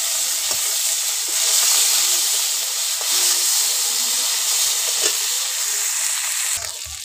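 Garlic and dried fish sizzling in hot oil in a kadai, stirred with a metal spatula that scrapes the pan now and then. The sizzle drops off suddenly near the end.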